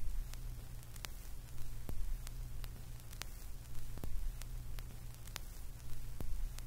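Static: a steady low hum under faint hiss, broken by scattered sharp clicks about twice a second.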